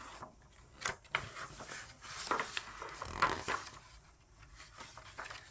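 Soft handling noises: quiet rustling with a few light clicks.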